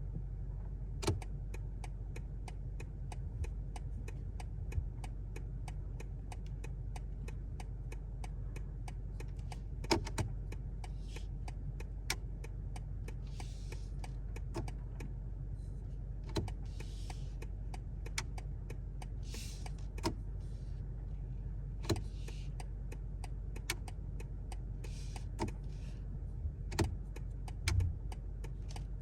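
Turn-signal indicator on a 2023 BMW 760i (G70) ticking steadily, with a louder click from the steering column every few seconds at irregular intervals. The owner holds this clicking to be a defect: it persisted after BMW replaced the turn-signal assembly, a steering-column part and a spring. A low steady hum runs underneath.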